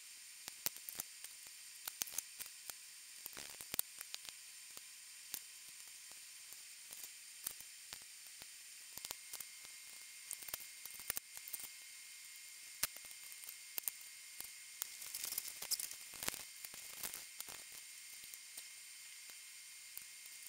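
Faint steady hiss with scattered light clicks and taps, denser about three-quarters of the way through, from small repair tools and parts being handled inside an iPhone 6.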